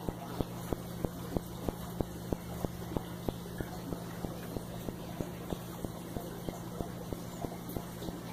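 Steady machine hum with an even ticking, about three ticks a second.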